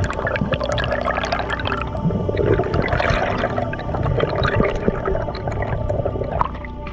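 Underwater bubbling and gurgling as large air bubbles rise past the camera, over a constant crackle of many small clicks.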